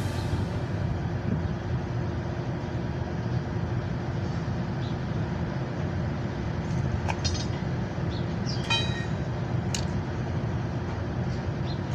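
Steady low rumble of outdoor traffic noise, with a few faint brief clicks and short high tones in the second half.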